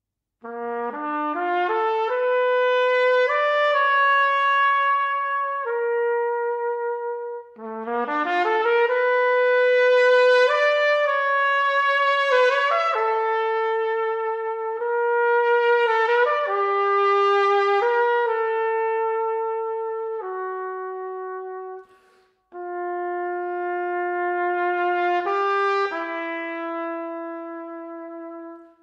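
Unaccompanied trumpet playing slow, held phrases. Twice a quick climbing run leads up into long sustained notes, and after a brief pause the line settles onto lower held notes near the end.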